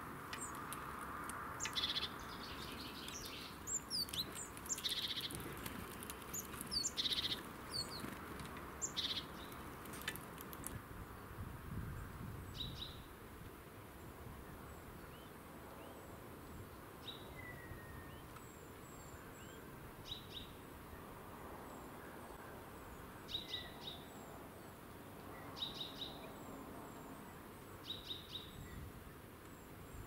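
Small songbirds chirping and calling, with a busy run of short high chirps in the first ten seconds and then sparser paired chirps every few seconds.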